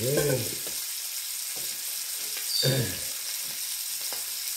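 A meat cutlet frying in fat in a pan, with a steady sizzle.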